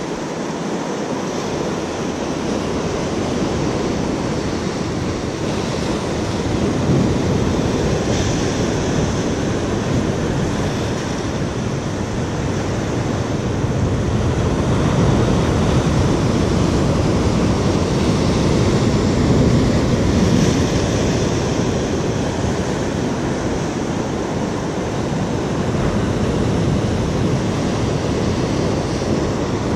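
Rough sea surf breaking and washing over rocks: a continuous rushing noise that swells louder and eases off again as sets of waves come in.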